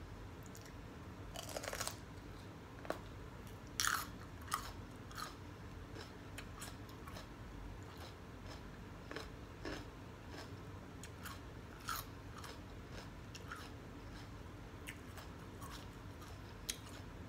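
Crunchy bites and chewing of a raw red mini sweet bell pepper, with the biggest crunches about two and four seconds in and softer chewing crackles after.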